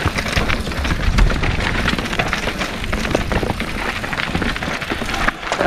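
Mountain bike rolling over a rocky trail: tyres crunching on loose stones, with a dense run of clacks and rattles from the bike and a low rumble of wind on the helmet-mounted camera's microphone. It eases briefly near the end.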